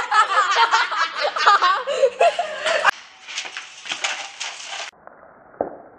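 Young people laughing and talking over one another, loud and excited; about five seconds in the sound cuts off suddenly to a much quieter background.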